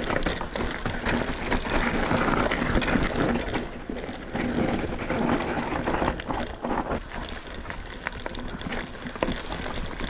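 Mountain bike rolling slowly down a dirt trail: steady tyre noise on dirt and stones, with frequent small clicks and knocks as the bike rattles over the ground.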